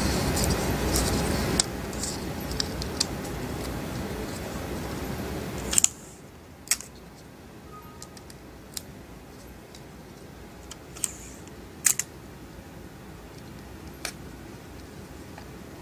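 Thin plastic screen-protector film and its backing liner crackling and clicking as they are handled and peeled apart: scattered sharp ticks, the loudest about six and twelve seconds in. A steady background hiss runs underneath and cuts out suddenly about six seconds in.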